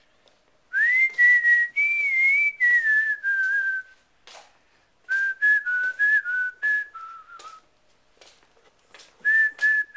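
A person whistling a slow tune in three phrases, note by note. The first phrase glides up and then drifts down, the second steps around a little lower, and a third starts near the end.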